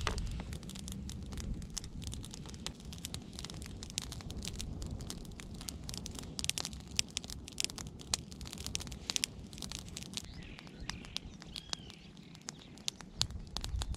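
Campfire of dry sticks crackling, with a steady run of sharp pops and snaps that are busiest around the middle.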